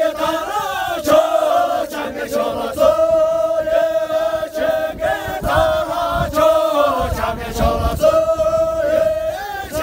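A group of men singing a song together in unison, loud, with long held notes.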